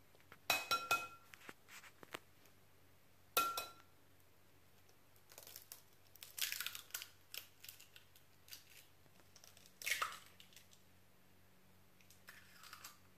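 Eggs cracked on the rim of a glass mixing bowl: a few sharp taps, two of them with a brief glassy ring, then eggshells crackling as they are pulled apart.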